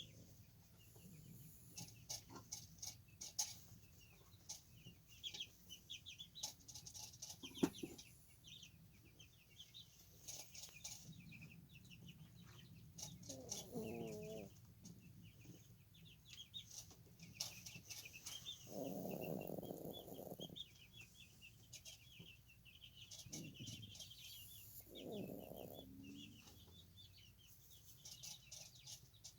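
Sleeping chihuahua puppy snoring and making soft dream noises a handful of times, each lasting a second or two, over faint, steady bird chirping.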